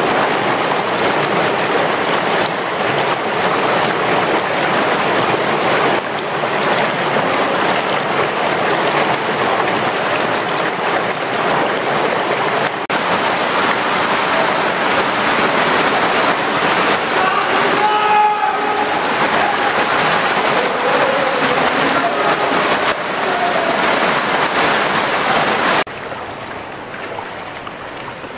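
Loud, steady rush of whitewater in a river flowing through a narrow rock canyon, heard close up. The sound drops in level near the end.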